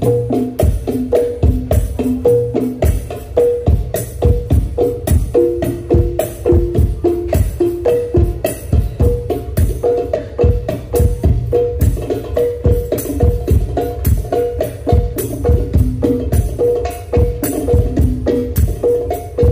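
Hadroh percussion ensemble of frame drums (terbang), darbuka and a jingle tambourine playing a fast, steady rhythm through the stage sound system during a sound check. Ringing drum notes run under the strokes and change pitch for a few seconds about a third of the way in.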